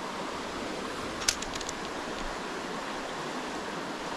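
Shallow river flowing steadily, a constant rushing of water. About a second in, a sharp click followed by a few fainter ticks.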